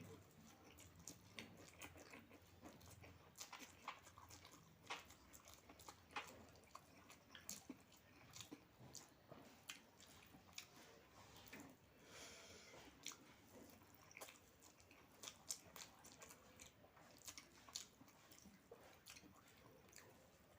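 A person chewing food close to the microphone: quiet, irregular wet clicks and smacks of the mouth, a few each second.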